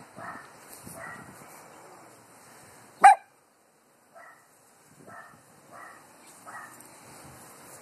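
Small dogs barking: one sharp, loud bark about three seconds in, then a string of four fainter short barks, about one a second.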